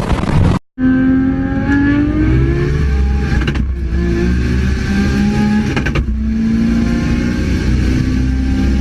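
Turbocharged tuner car engine revving: a loud rush of noise cuts off sharply, then the engine climbs in pitch and holds at steady revs, with two brief breaks.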